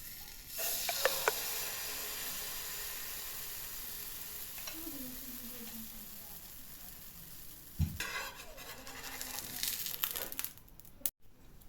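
Pancake batter sizzling in a hot oiled frying pan, starting suddenly about half a second in and slowly fading. About eight seconds in there is a knock, then a couple of seconds of clattering.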